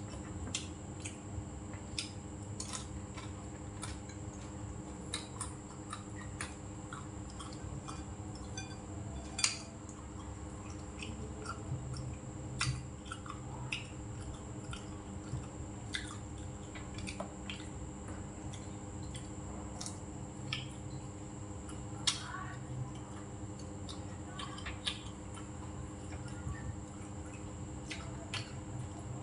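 Eating sounds: chewing, with scattered light clicks and taps of chopsticks and a metal spoon against the bowls, over a steady background hum.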